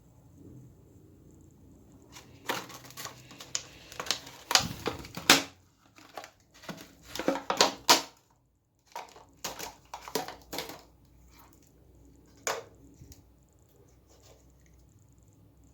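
Packaging being handled while speakers are unboxed: a series of irregular crinkles, rustles and sharp knocks that starts about two and a half seconds in, with a last knock a few seconds before the end.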